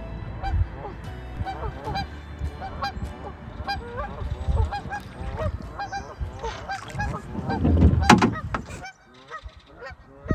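A flock of geese honking, many short calls at about two a second, over the low rush of the river. About eight seconds in a brief louder burst of noise covers them, and the calls fade after that.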